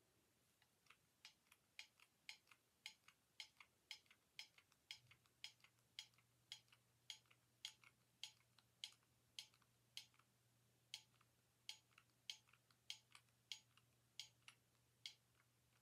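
Faint, sharp clicking, about two to three clicks a second at slightly uneven spacing, with a low steady hum that comes in about five seconds in.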